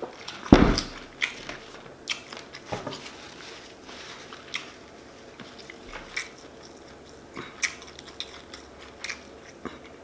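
Close-up chewing and biting of food, with short wet mouth clicks and crunches scattered throughout. One heavy thump about half a second in is the loudest sound.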